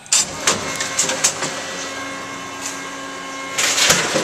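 Tomra T-53 reverse vending machine taking in a plastic bottle: a few clicks, then its motor runs steadily with a hum as the bottle is turned in the chute, and a louder burst of noise comes near the end.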